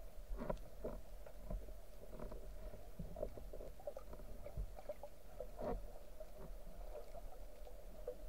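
Underwater sound picked up through a camera housing: a low steady rumble and hum with irregular clicks and knocks, several a second, as the metal spear shaft and speargun are handled with a speared fish on the shaft.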